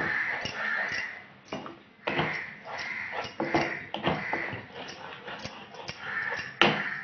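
Wooden spatula stirring and scraping a thick coconut paste around a non-stick pan in repeated strokes, with a sharper knock near the end.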